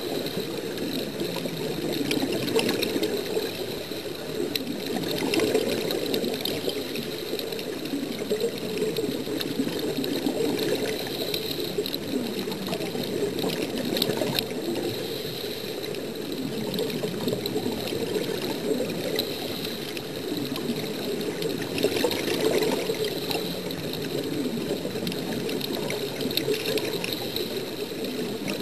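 Continuous bubbling and rushing water heard underwater, with no pauses.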